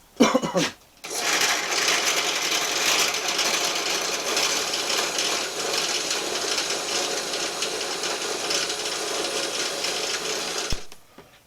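Electric drill running steadily as it drills holes through metal for a knife's pommel, stopping suddenly near the end.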